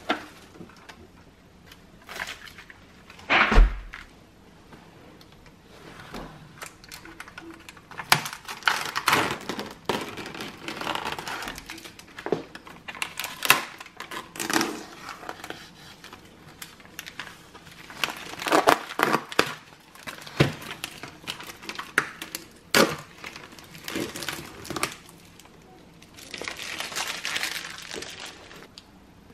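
Thin plastic film being peeled off a clear plastic food tray, crinkling and crackling in irregular bursts with clicks from the flexing tray. A single knock about three and a half seconds in.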